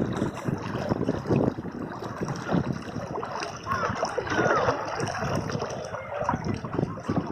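River water rushing and gurgling over rocks: a continuous uneven splashing, with bubbling swirls about four to five seconds in.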